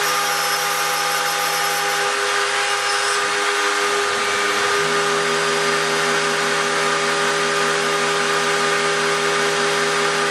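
Spindle of a homemade CNC gantry milling machine running steadily while engraving brass: a constant whine over a broad hiss. A lower hum under it breaks off and changes pitch for a second or two about three seconds in, then settles again.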